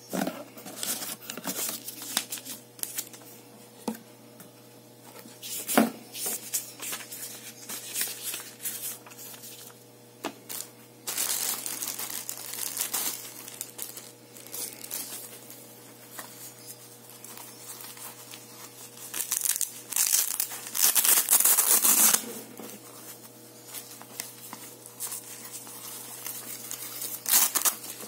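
Clear plastic packaging crinkling and rustling as the parts of a blood pressure monitor are unwrapped, along with the handling of a cardboard box and fabric cuff. The crinkling comes in short bursts, with louder stretches about 11 seconds in and again around 20 to 22 seconds, and a single knock about six seconds in.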